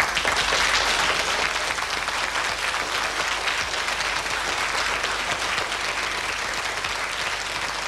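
Audience applauding, a steady clatter of many hands clapping that eases off a little toward the end.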